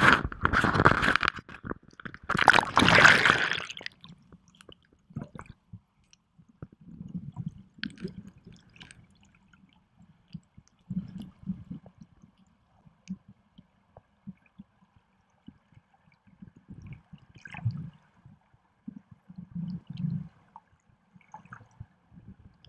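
Water splashing at the surface of a river, two loud bursts in the first four seconds, then muffled gurgling and scattered low thumps of water moving around the camera under water.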